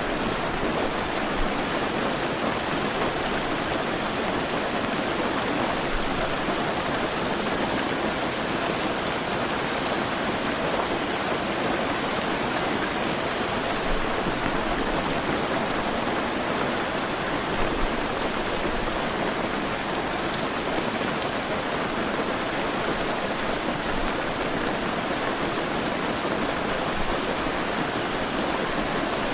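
Heavy rain falling steadily, a dense even hiss of rain on surfaces with scattered louder drops.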